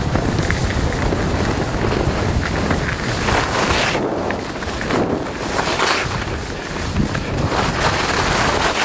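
Wind buffeting the microphone of a camera carried by a downhill skier, with the hiss of skis scraping over packed snow that swells on each turn, about every second or two.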